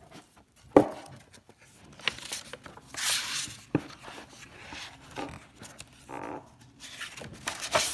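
A paper picture book being handled and its pages turned: scattered paper rustles with a couple of sharp knocks, one about a second in and one near the middle.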